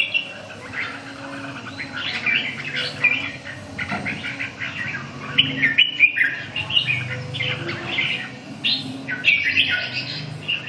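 Red-whiskered bulbul singing in short, quick warbling phrases, one burst of song every second or two with brief gaps between.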